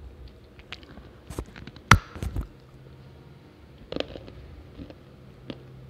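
A dry chunk of multani mitti (Fuller's earth clay) bitten with a sharp crack about two seconds in, followed by brief crunching. A second crunch comes about four seconds in, with small crumbly clicks in between.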